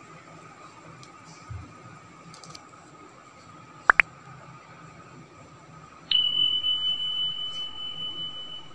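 Subscribe-button overlay sound effects: a quick double mouse click about four seconds in, then a bell ding about two seconds later that rings on as one steady high tone, slowly fading, over faint room hiss.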